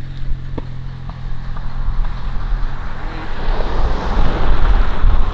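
Wind buffeting the microphone over the low hum of a vehicle engine, the hum fading about three seconds in as a broad rushing noise builds.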